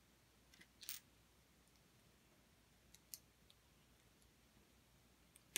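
Near silence with a few faint, short clicks of plastic LEGO pieces being handled, the clearest about a second in and another about three seconds in.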